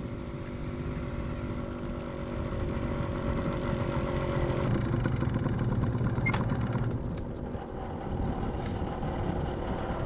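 Small motorcycle engines running as a few riders come along a dirt track toward the listener, growing louder to a peak in the middle and then steadying.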